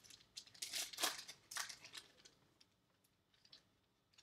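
Trading-card pack wrappers crinkling as packs are opened and handled: a cluster of sharp crackles in the first two seconds, then only faint rustles.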